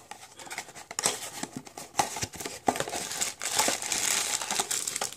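Blind-bag toy packaging being crinkled and torn open by hand: a dense run of crackles and rustles, busiest about four seconds in.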